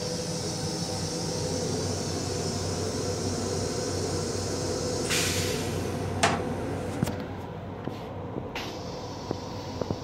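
Steady hum of an M7 railcar's equipment and ventilation in its restroom, with a short hiss about five seconds in, then a plastic clack and a few lighter knocks as the toilet seat is lifted.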